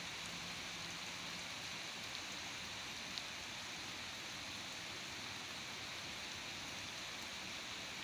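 Heavy rain pouring onto flooded ground and standing water, a dense, steady hiss, with one faint tick about three seconds in.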